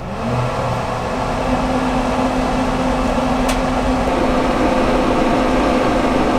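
Traeger pellet grill switched on to preheat on high: its fan motor hum rises in pitch over the first second, then runs steady. One light click about halfway through.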